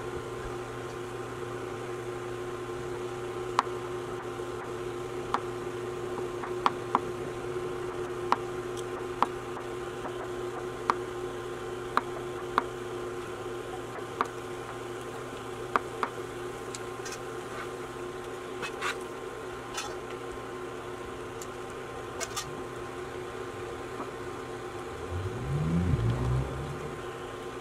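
Knife blade clicking sharply against a marble countertop as mushrooms and tomatoes are sliced, about one cut a second. Underneath is the steady hum of an induction cooktop heating a pot of boiling vegetables, and near the end a short low rumble is the loudest sound.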